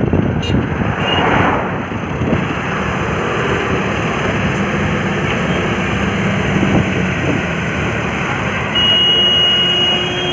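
Heavy diesel engines of a stuck trailer truck and the mobile crane towing it running hard under load, a dense steady drone. Near the end a high-pitched horn or warning tone sounds for about a second and a half.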